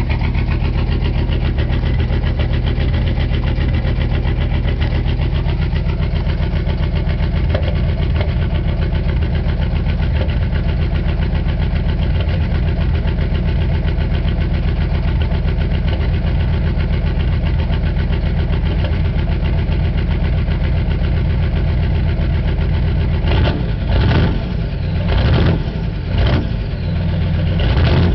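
GM 6.5-litre V8 diesel idling with a steady clatter while still cold, after being started without its block heater plugged in. Near the end the sound surges briefly a few times.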